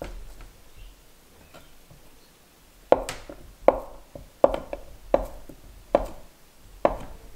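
Knife chopping on a cutting board: six firm strokes, about one every three-quarters of a second.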